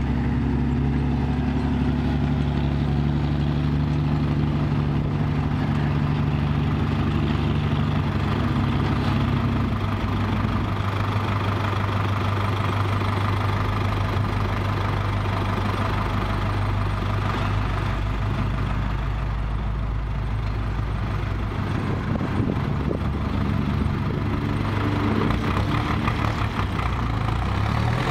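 Six-wheel dump truck's diesel engine running steadily at low revs, its note changing about ten seconds in and then running on evenly.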